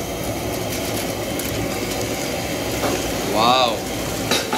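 Steady rush of ramen broth boiling in a pan on a gas burner. A man says a drawn-out "wow" about three and a half seconds in, and there is a sharp click near the end.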